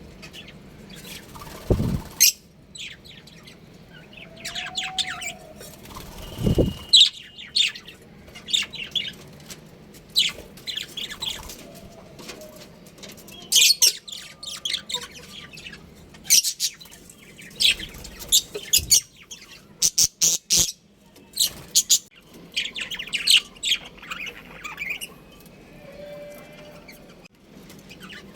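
A group of budgerigars chirping and chattering, with many short, rapid calls overlapping. Two dull thumps stand out about two and six seconds in, and there are a few sharp clicks later on.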